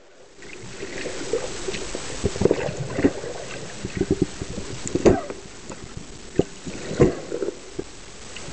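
Underwater sound picked up by a speargun-mounted camera: a steady hiss of moving water with irregular knocks and clicks, louder knocks about halfway through and again near the end.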